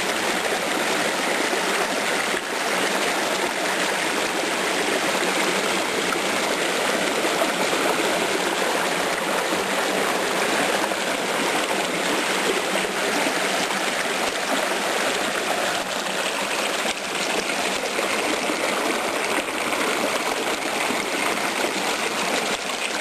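A small rocky creek rushing and splashing around both sides of a rock, fed by a little waterfall: a steady, unbroken water noise.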